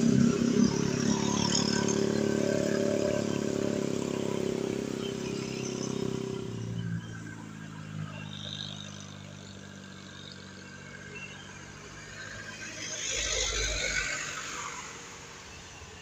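Diesel bus engine pulling under load with a steady drone, fading away after about six seconds. About thirteen seconds in, another bus passes close, its noise swelling and then dying away.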